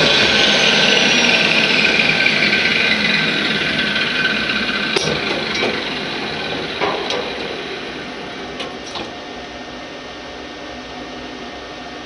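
A power tool winding down: a loud, noisy whirr whose pitch slowly falls as it fades, with a few light knocks about halfway through.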